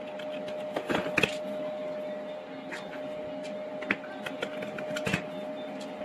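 Screwdriver working the screws out of a mini handheld vacuum cleaner's plastic housing: scattered light clicks and taps of the tool and plastic. A steady hum runs underneath.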